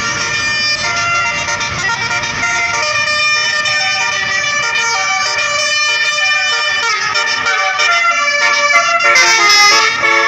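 Tour bus telolet horn, a set of musical air horns playing a tune of stepped notes one after another, over road traffic; the horn is loudest near the end.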